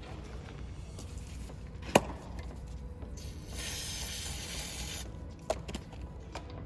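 Engine parts being cleaned with degreaser: a sharp knock of a part handled about two seconds in, then a spray hissing for about a second and a half, and a lighter knock, over a steady low rumble.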